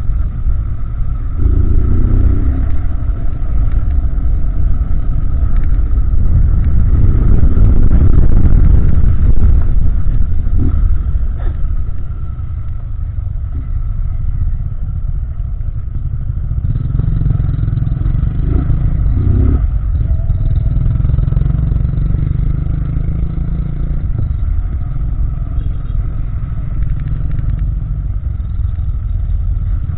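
Honda Titan 160 single-cylinder motorcycle engine running under riding load, its exhaust sound likened to a BMW 310's, shifting up through the gears. Louder for the first ten seconds, easing off about twelve seconds in, then pulling harder again from about seventeen seconds.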